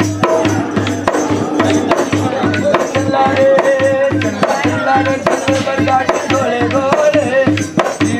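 Music with a hand drum keeping a steady quick beat. A wavering melody line joins it about three seconds in.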